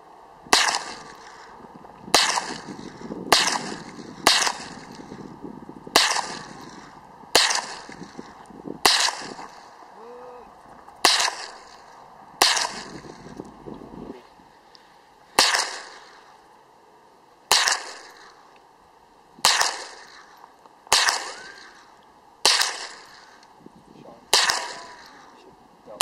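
Ruger 10/22 semi-automatic .22 rifle firing a steady string of about sixteen single shots, one every one to two seconds, each a sharp crack with a short echo trailing off.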